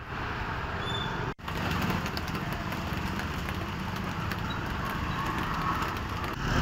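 Street ambience of vehicle traffic on a rain-soaked road: a steady rushing noise with a low rumble, cut off for an instant about a second and a half in.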